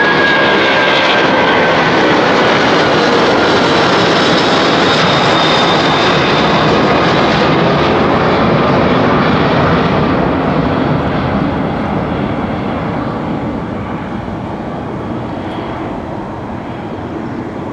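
Boeing 747-400F freighter's four jet engines at takeoff thrust as it climbs out past and away: a loud, steady roar with a thin whine falling slightly in pitch over the first couple of seconds. The roar fades gradually from about ten seconds in as the aircraft recedes.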